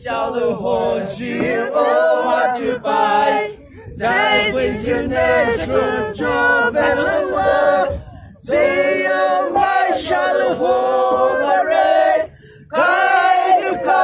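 A group of voices singing together without instruments, in long held phrases with short breaks for breath about four, eight and twelve seconds in.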